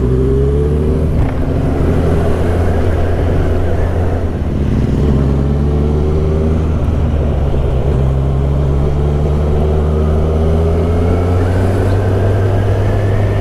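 Kawasaki Z1000SX (Ninja 1000) inline-four engine running steadily while riding, its pitch rising gently near the start and again later as the bike picks up speed.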